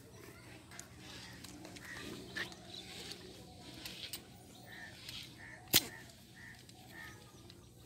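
Short, repeated bird calls, a few each second in the second half, with scattered light clicks and one sharp knock about six seconds in, the loudest sound.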